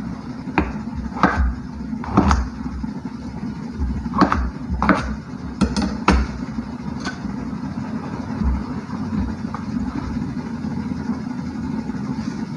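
Kitchen knife chopping king oyster mushrooms on a plastic cutting board: irregular sharp knocks, about eight in the first seven seconds, then sparser, over a steady low hum.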